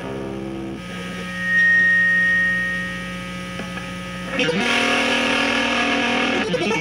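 Electric guitar played through effects: a held chord fades down to one sustained low note, and a pure high tone swells in and fades away as the loudest sound. Fuller strummed chords come back in at about four and a half seconds, over a steady mains hum.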